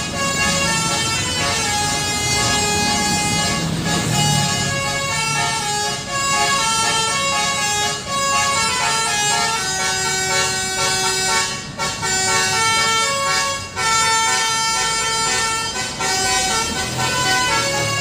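Basuri 'telolet' musical air horn on a bus playing a continuous melody of held notes, the pitch stepping from note to note every second or so.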